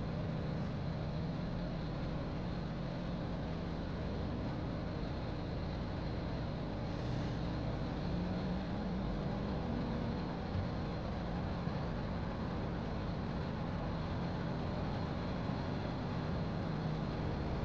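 Steady low rumble of a car's engine and tyres, heard from inside the car as it rolls slowly along.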